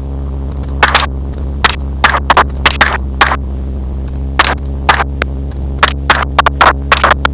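Rapid, irregular rifle shots, about eighteen in all and several fired in quick succession, from hunters shooting hogs out of a helicopter. Underneath is the helicopter's steady low hum, heard as through an intercom feed.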